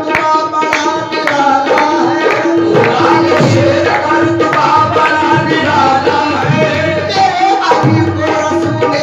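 Qawwali music: tabla drumming at a brisk, steady pulse under held melody notes.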